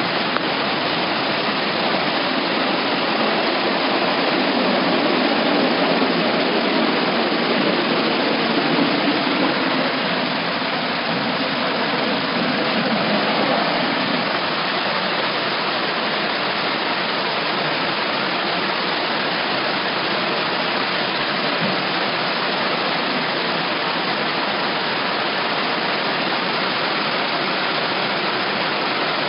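Torrential rain and floodwater rushing through a street: a steady, even rush of water noise, a little fuller in the first half.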